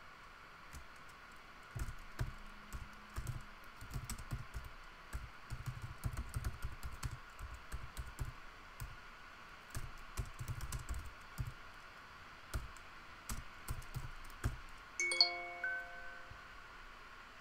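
Typing on a computer keyboard: irregular runs of key clicks. About fifteen seconds in, a short chiming alert of several tones sounds, a computer calendar notification.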